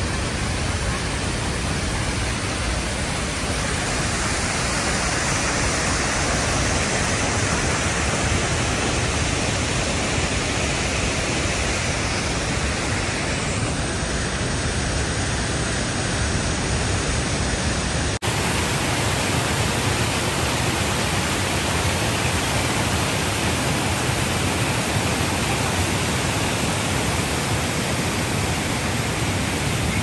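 Keila waterfall, a wide river waterfall, pouring over a rock ledge with a steady rushing sound. There is a brief break about eighteen seconds in, where two recordings are joined.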